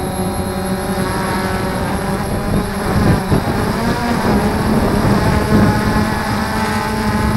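Quadcopter drone's electric motors and propellers buzzing in flight, heard from the drone's own camera. The pitch holds steady, then wavers and turns rough and uneven for a few seconds in the middle as the motors change speed, before settling again.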